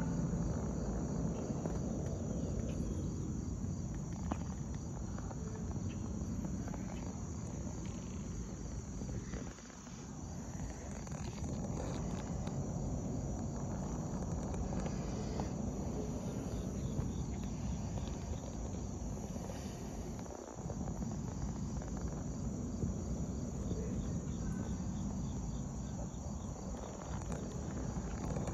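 Steady chorus of late-summer insects, a high continuous chirring, over a low, uneven rumble.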